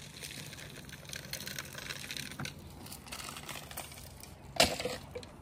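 Footsteps crunching and rustling over wood-chip mulch, with one sharp knock about four and a half seconds in.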